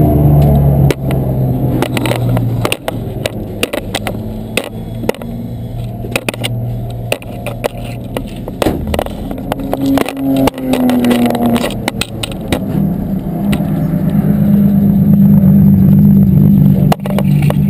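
BMW race car's engine running at low speed, heard from inside the stripped, roll-caged cabin, with many sharp rattles and knocks from the car's interior. The engine note falls briefly around ten seconds in, then runs louder and steadier for the last few seconds.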